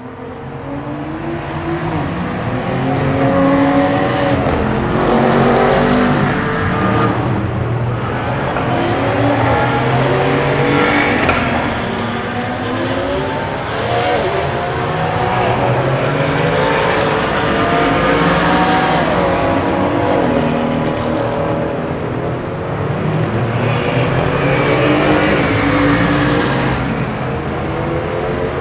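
Race cars passing one after another under hard acceleration, their engines' pitch climbing and dropping back at each upshift, with several cars overlapping and swelling louder as each goes by.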